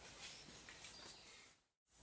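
Near silence: faint room tone, dropping to complete silence near the end.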